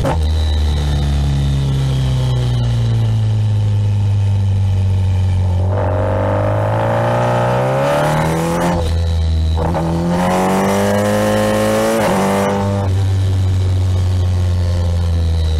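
Kawasaki Ninja 1000SX's inline-four engine, heard from the rider's seat, easing off at first, then twice rising in pitch under throttle, about six and ten seconds in, each time dropping back sharply when the throttle closes or a gear changes.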